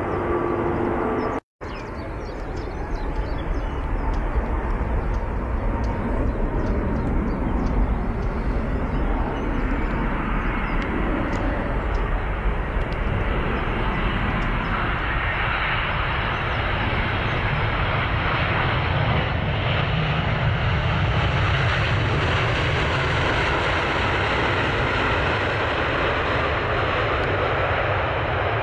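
Large jet airliner on landing approach, its engine noise a steady rumble that grows louder and brighter over the second half, strongest about three quarters of the way through. There is a brief gap of silence about a second and a half in.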